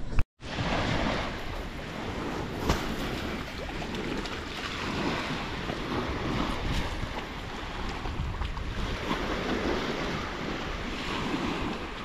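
Sea surf washing on the shore in slow swells, with wind buffeting the microphone. A click and a split-second dropout at the very start.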